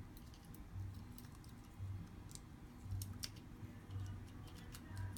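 Scattered small clicks and taps of phone parts and tools being handled, over a low hum that swells about once a second.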